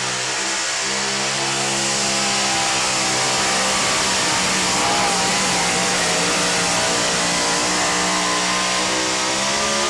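Supercharged engine of a two-wheel-drive pulling truck at full throttle, dragging a weight-transfer sled down the pulling track. The engine climbs in pitch in the first second as the truck launches, then holds a steady, loud, high-revving note.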